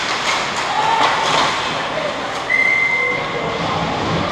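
Ice hockey play: skates scraping the ice and sticks clacking on the ice and puck in front of the goal, over the echoing rumble of the rink, with shouts from players. A short, steady high tone sounds about two and a half seconds in.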